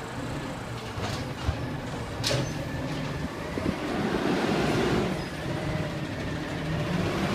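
Amrep automated side-loader garbage truck running as it moves between pickups, a steady low engine rumble that grows louder around the middle. Two sharp knocks come about one and a half and two and a half seconds in.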